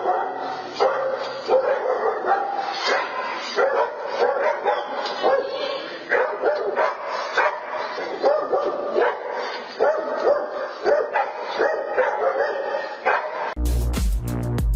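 A dog barking and yipping over and over, a fast run of short barks about two a second. About a second before the end, loud electronic dance music with a heavy bass beat cuts in.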